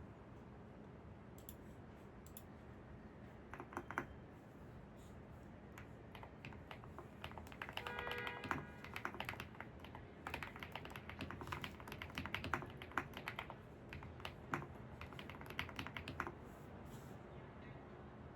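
Typing on a computer keyboard: a few keystrokes about four seconds in, then a steady run of typing through the middle of the clip, over a soft, steady background hiss.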